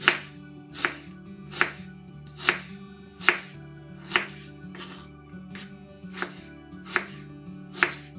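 Kitchen knife slicing an onion into half-rings, each cut ending in a sharp knock of the blade on a wooden cutting board, about nine cuts at an even pace, with a short pause in the middle.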